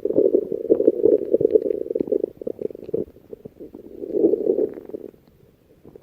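Human stomach growling: gurgling, bubbly rumbles, a long run for about three seconds, a second swell about four seconds in, then fading out near the end.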